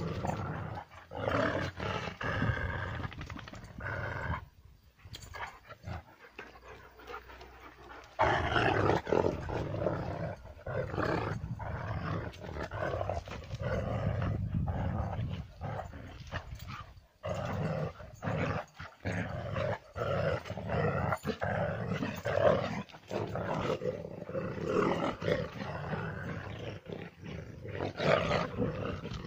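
A Kangal shepherd dog and another dog growling as they wrestle in a play fight, in dense irregular bursts with a quieter lull of a few seconds early on.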